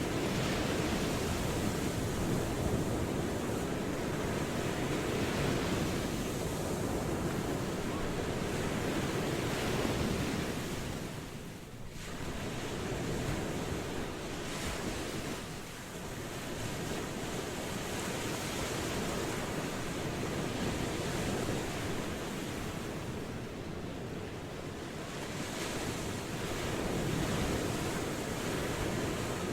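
Ocean waves washing ashore: a steady rush of surf that eases off briefly about twelve seconds in, then builds again.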